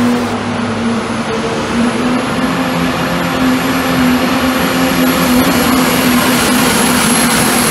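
Super stock diesel pulling truck at full power dragging a weight-transfer sled: the turbocharged diesel engine runs loud and steady, with a constant high-pitched turbo whistle over the roar.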